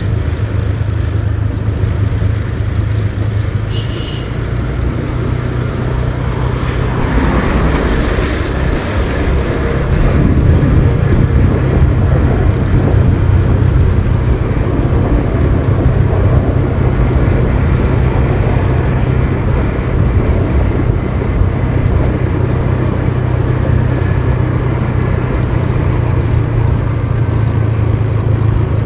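Motorbike on the move: its engine runs steadily under a heavy rumble of wind on the microphone. The sound grows louder about ten seconds in and stays steady after that.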